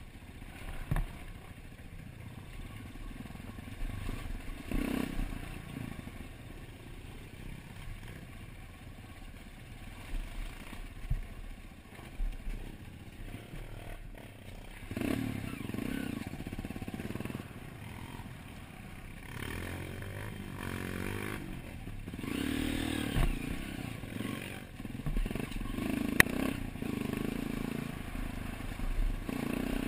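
Dirt bike engine running on a rough trail, revving up in bursts several times, with clatter and knocks from the bike bouncing over the dirt. A sharp click comes about 26 seconds in.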